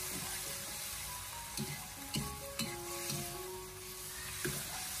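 Chicken giblets sizzling in hot oil in a wok over high heat as a metal ladle stir-fries them, with a few short scrapes and knocks of the ladle on the wok.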